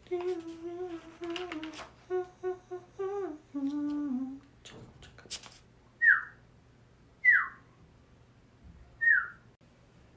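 A person hums a short wandering tune, makes a couple of sharp clicks, then three short whistle-like notes that each drop quickly in pitch, done as vocal sound effects.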